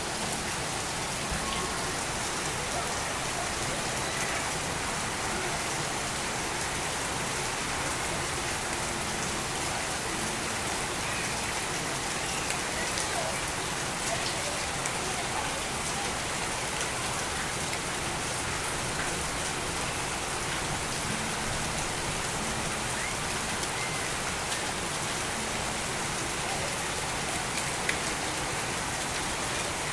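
Heavy rain falling steadily, with a few faint short bird chirps scattered through it.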